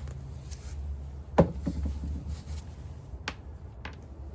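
A few scattered clicks and light knocks of the plastic pedal-mechanism parts of a spin mop bucket being handled during disassembly, over a low steady hum.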